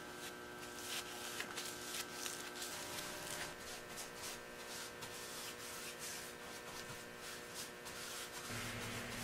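Paintbrush strokes on wood, faint scratchy swishes a few times a second, as varnish is brushed onto a barn-wood stool. A faint steady hum runs underneath.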